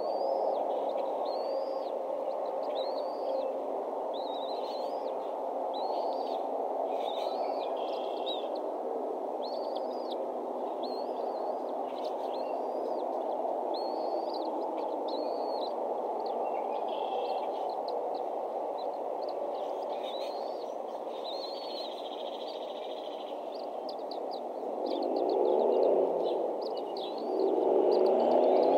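A bird giving short high chirps, each rising then falling, about one a second, over a steady low rushing background. Near the end the low rush swells louder twice.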